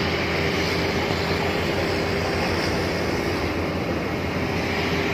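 Steady aircraft engine noise beside a parked turboprop airliner: a constant loud rush with a steady droning tone and a low hum underneath, unchanging throughout.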